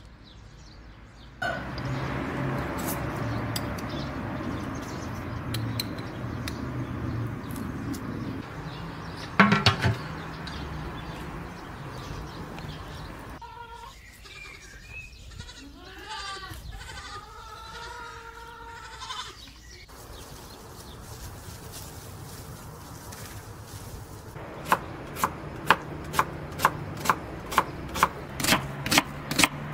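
A steady rushing noise with a low hum and a single ringing clank, then a goat or sheep bleating several times for about six seconds. Near the end, a knife chops onions on a board at about two to three strokes a second.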